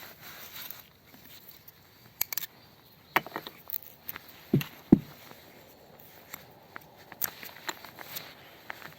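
Scattered footsteps and light knocks of handling, with two louder knocks about halfway through; no chainsaw running.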